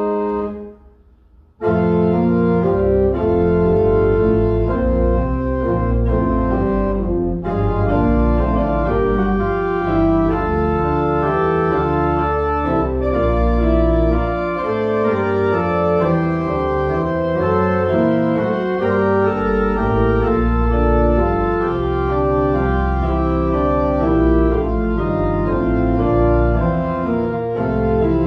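Church pipe organ played in full chords over deep pedal bass. A held chord cuts off right at the start; after about a second and a half of silence the organ comes back in and plays on, the chords changing steadily.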